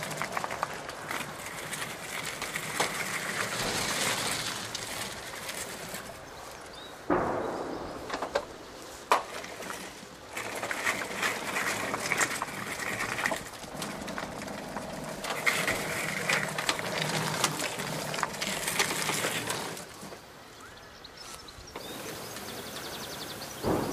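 Electric drive and arm motors of a Remotec bomb-disposal robot whirring in intermittent spells as it drives and moves its manipulator, with two sharp knocks about seven and nine seconds in.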